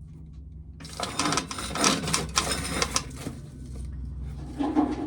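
Corn sheller rattling and clattering for about two seconds as ears of corn go through it, over a steady low hum.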